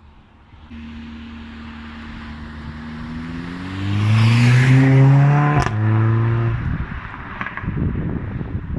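Mercedes-AMG CLA45's turbocharged four-cylinder accelerating hard, its engine note climbing in pitch and growing much louder over a few seconds, with a single sharp exhaust crack about five and a half seconds in; the sound then holds briefly and fades away.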